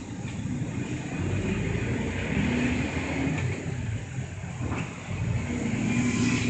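Route bus's engine heard from inside the cabin as the bus drives and accelerates; the engine note climbs, dips briefly just before five seconds in, then climbs again toward the end.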